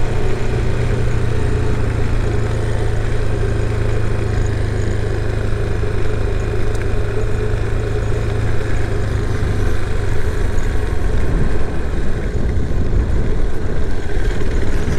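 Yamaha Serow 250's single-cylinder four-stroke engine running steadily with an even, unchanging note.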